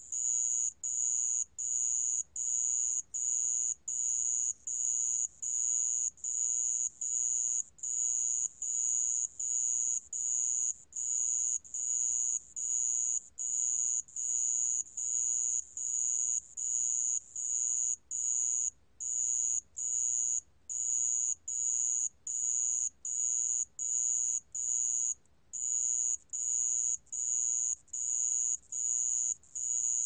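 Song of the 모래방울벌레, a small Korean ground cricket, recorded at 28 °C: a high, pure-toned trill chopped into short chirps, repeated at an even pace of roughly two a second, with a few slightly longer pauses.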